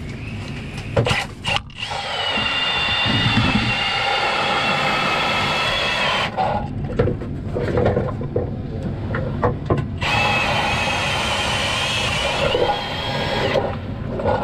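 Cordless drill driving an ice auger down through the ice, a steady motor whine that runs for about four seconds from about two seconds in, then stops. Knocks and clatter follow, and the drill runs again for about three and a half seconds near the end.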